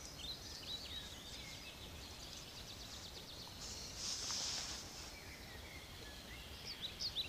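Small birds chirping faintly, short high calls in quick series, more of them near the end. A brief soft rustling hiss about four seconds in.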